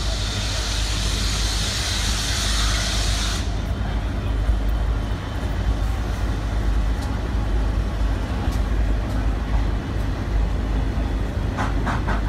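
A loud steam hiss from a steam locomotive cuts off suddenly about three seconds in. Underneath, a steady low rumble from a loaded coal train's diesel locomotives and hopper wagons running past.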